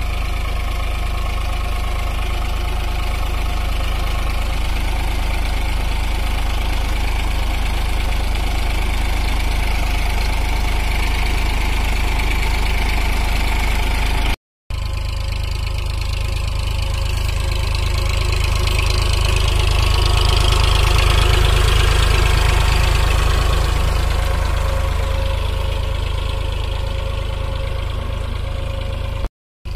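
Eicher 551 tractor's diesel engine running at a steady low speed as the tractor crawls along with no one at the wheel, pulling an empty trolley. It grows louder past the halfway point and then eases off again. The sound breaks off for an instant halfway through.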